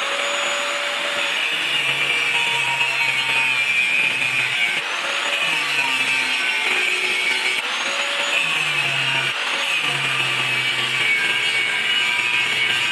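Power tool working the steel of an old saw blade, a steady grinding noise with no breaks.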